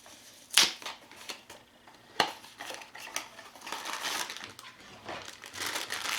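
Blind-box toy packaging being handled and opened by hand: a couple of sharp clicks of cardboard, then crinkling of the wrapping that builds up over the last couple of seconds.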